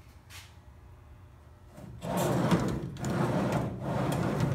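Polycarbonate enclosure door running along its metal drawer slides, a rolling rumble that starts about two seconds in. It comes in two runs with a brief break between them and stops abruptly.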